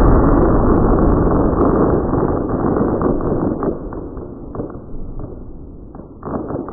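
Fireworks display: a dense barrage of bangs running together into a continuous rumble, which thins out about halfway through to scattered single bangs and picks up again near the end.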